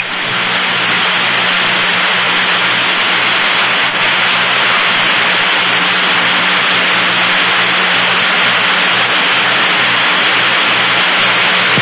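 Steady radio static hiss on an open air-to-ground voice loop, with a low hum underneath and no voice coming through: the unanswered channel of a communications problem with the crew.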